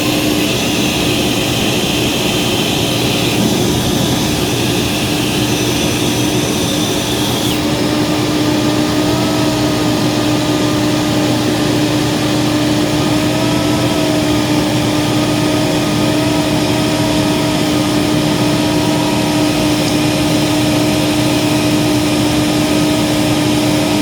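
Vintage Hoover Portable 2110 vacuum cleaner running steadily with a constant motor hum and air rushing into its inlet during an airflow test. The high hiss drops twice in the first several seconds, and a faint wavering whistle comes in after that.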